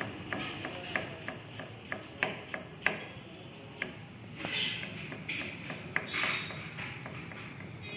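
Kitchen knife chopping onion on a wooden block: irregular sharp knocks of the blade on the wood, about two a second, with a couple of brief scraping sounds.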